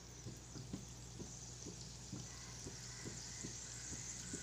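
Gulab jamun dough balls frying in hot vegetable oil in an iron kadai: a faint sizzle with light ticks that grows louder over the second half as more balls go into the oil.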